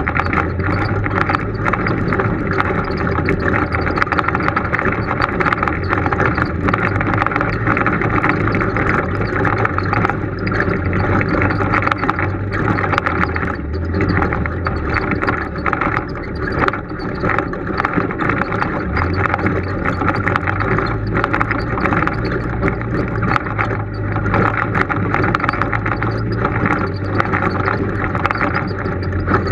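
Polaris RZR side-by-side's engine running at low speed as it crawls over a rocky trail, with frequent knocks and rattles from the vehicle jolting over the rocks.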